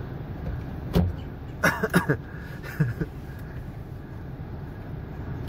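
Car engine idling, heard from inside the cabin as a steady low rumble. A few brief sharp knocks and clatters come in the first three seconds.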